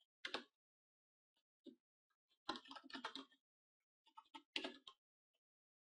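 Faint typing on a computer keyboard: quick runs of keystrokes in a few short bursts, with pauses between.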